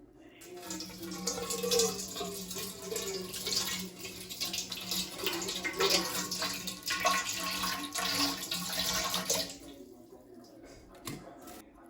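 Water running from a tap into a sink, splashing unevenly, then turned off near the end.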